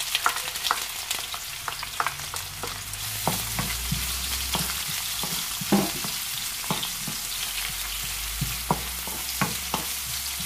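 Freshly added chopped onions sizzling steadily in hot olive oil in a wok, with a wooden spatula knocking and scraping against the pan every so often as they are stirred: the start of a sauté.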